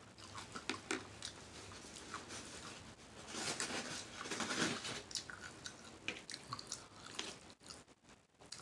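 A person chewing food with wet, open-mouthed smacking: a run of small mouth clicks, busiest from about three to five seconds in.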